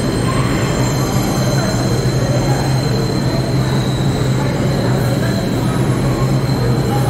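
New York City subway train running through a station: a loud, steady rumble with a high, steady wheel squeal over it.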